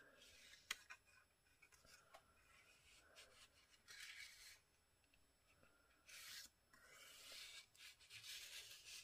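Faint rustling and sliding of paper collage pieces being moved about on a page, with a sharp tap less than a second in and a few longer rubs later.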